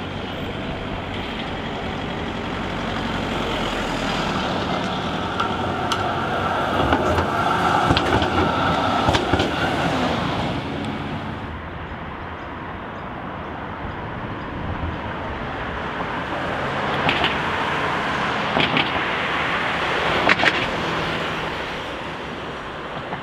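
City street traffic with trams running: steady road and motor noise with a few sharp clicks. The sound changes abruptly about halfway through.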